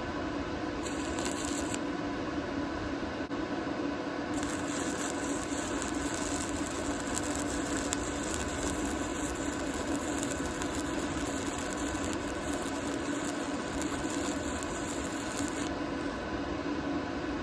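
Welding arc crackling and hissing over a steady hum from the shop, the high hiss stopping briefly about a second in and again near the end.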